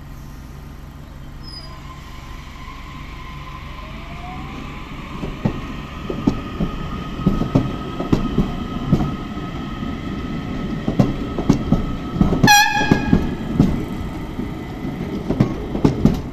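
DART electric train pulling away: a low hum and an electric whine that rises in pitch as it gets moving, then the wheels knocking over the rail joints, louder as the cars go by. One short horn blast sounds about twelve seconds in.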